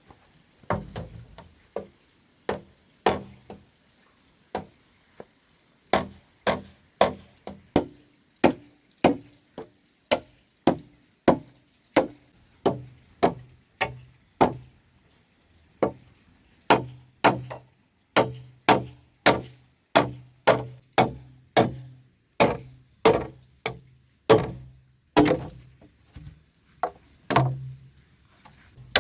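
A tool striking wood again and again in hard, even blows, at first a second or so apart, then steadily about two a second, with a short pause near the end.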